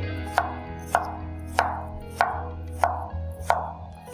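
A kitchen knife slicing a cucumber on a wooden cutting board: a steady run of about six sharp chops, roughly one every 0.6 seconds, the blade knocking the board on each cut.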